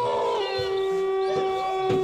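Horror-film soundtrack: several held eerie tones, with a howl-like wailing cry that glides down over them.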